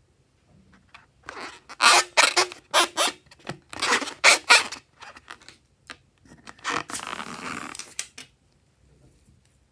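A rubber water balloon squeaking and crackling in a series of short bursts as it is squeezed and opened over a glass bowl. Then its liquid and glitter contents squirt out into the bowl with a hissing gush lasting about a second and a half.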